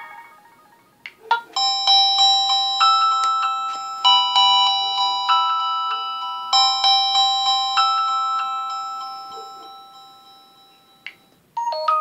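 Stock ringtones of an LG K10 LTE phone: a chiming, bell-like melody starts about a second and a half in, repeats its short phrase every couple of seconds and fades out by about ten seconds. Another ringtone begins near the end.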